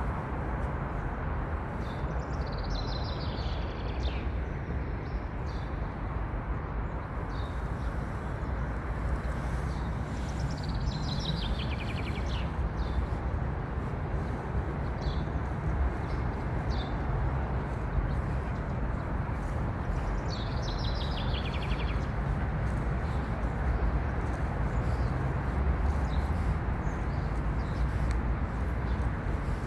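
A songbird sings the same short, falling song phrase three times, about nine seconds apart, with a few faint chirps between. Under it runs a steady, louder rushing noise.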